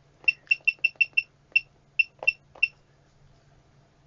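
Electronic test instrument beeping: about ten short, high, single-pitch beeps in quick, uneven succession, as its keys are pressed to step the test value, stopping a little over halfway through.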